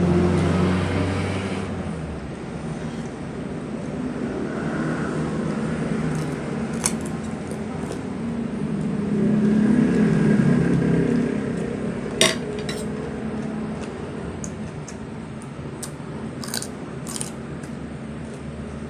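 Close-up eating sounds: chewing and a few sharp crisp clicks from biting raw white radish and a metal spoon touching the plate, the loudest about twelve seconds in, over a steady low hum.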